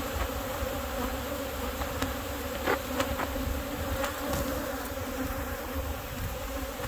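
Honey bees buzzing in a dense cloud around opened hives, a steady drone of many wings, with a couple of light knocks a little under halfway through.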